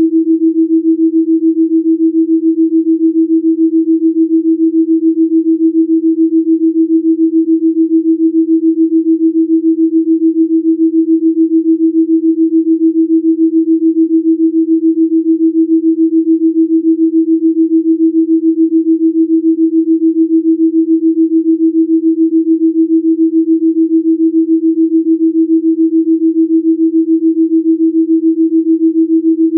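Electronically generated pure sine tone, a delta binaural Rife-frequency tone, held at one unchanging pitch with an even, regular pulsing in loudness.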